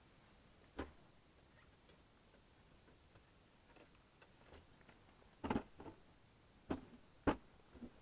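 Metal folding camp table being unfolded and its legs set: a single knock about a second in, then a run of sharp clicks and clatters in the last few seconds, the loudest about five and a half seconds in.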